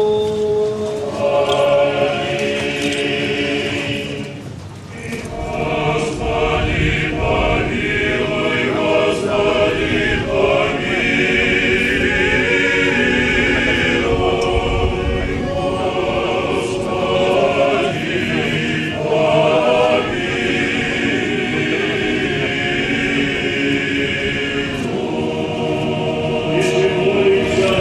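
Choir of cadets singing slowly in many voices, with long held notes and a short break about four to five seconds in.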